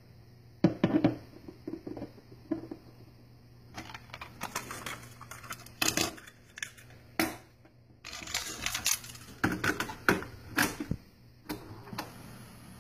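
Scattered clicks, taps and short clatters of small objects being handled on a wooden tabletop, among them a plastic cassette case being set down and stood upright.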